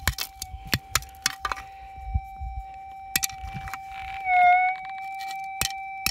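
Metal detector's steady threshold hum, one held mid-pitched tone, with a brief louder dip in pitch about four seconds in as it signals a target, here a small gold nugget. Scattered sharp clicks come from stones and dirt being handled in a plastic digging scoop.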